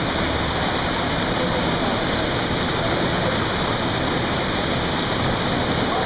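Small waterfall and the stream below it rushing through a rocky gorge, a steady, unbroken roar of falling and churning water.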